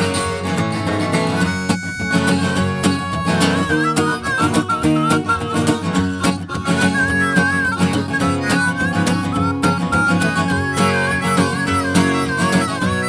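Instrumental break of a folk-country song: acoustic guitar playing chords, with a harmonica taking a wavering, bending melody line from about two seconds in.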